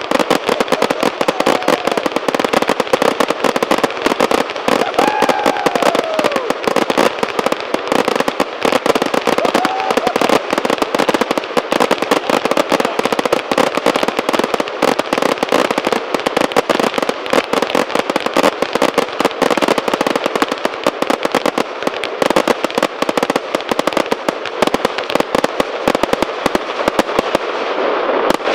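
Eight Weapon G firework cakes firing at once: a dense, continuous crackle of rapid shots and bursts, with a couple of brief gliding tones about five and ten seconds in.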